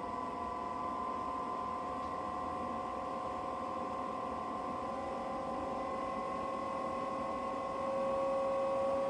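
Blower fan of a diesel/electric combination air and water heater, a Chinese copy of a Truma Combi D6E, spinning up to its high setting. It makes a steady whine of several tones that creep upward in pitch and get a little louder near the end.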